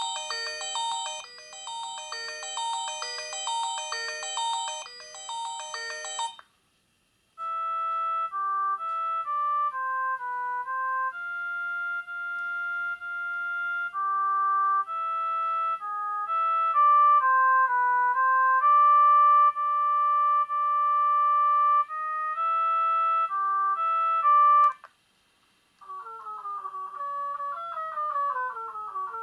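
HAMMER Basalt mobile phone playing its built-in ringtones one after another. A busy ringing melody stops about six seconds in. After a short pause comes a slower electronic tune of single held notes, and after another pause near the end, a fast run of rippling notes.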